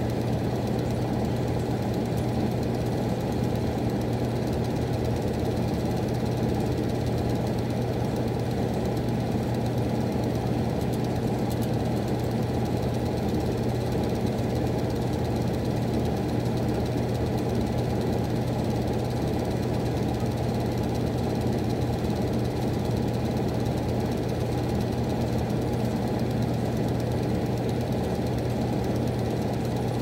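Miller E2 furnace running: a steady low hum with a rumble, even and unchanging throughout.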